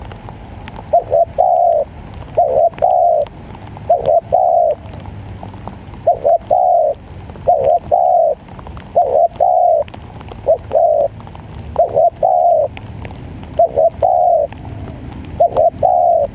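Spotted dove cooing over and over, each phrase a short note or two and then a longer one, about every one and a half seconds.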